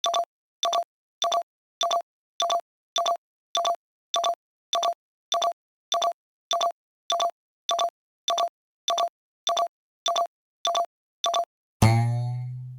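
Telephone keypad (touch-tone) beeps: the same key sounding again and again in quick double beeps, about one and a half a second. Near the end a loud, low struck tone cuts in and dies away over about a second.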